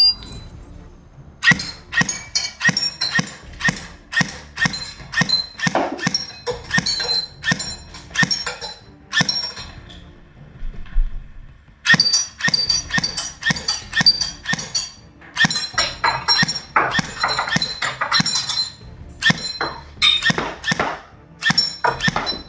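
Background music with a steady, punchy beat, which thins out briefly about ten seconds in before picking up again.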